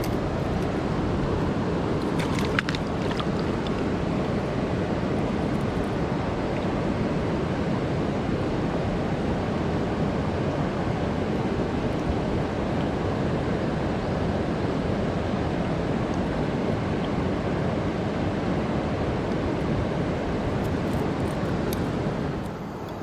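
Steady rush of a fast-flowing river, with a couple of faint clicks a few seconds in; the rush drops in level just before the end.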